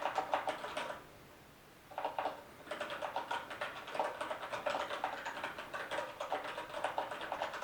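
Typing on a Kinesis Advantage2 ergonomic keyboard with brown mechanical switches: a quick run of key clicks, a short pause about a second in, then steady fast typing again.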